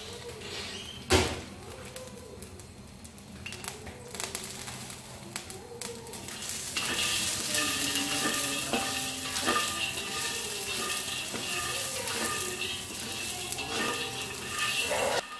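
Peanuts sizzling in a wok as a slotted spatula stirs and scrapes them around, the nuts rattling against the pan. A sharp knock of the spatula about a second in, and the sizzle grows louder about seven seconds in.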